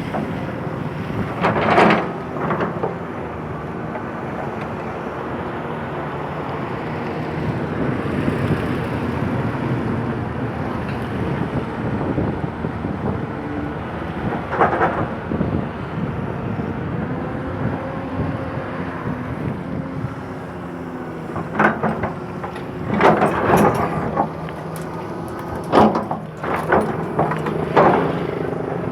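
Excavator's diesel engine running steadily, with short knocks and clanks from the machine's work: one about two seconds in, one mid-way, and a cluster of several in the last seven seconds.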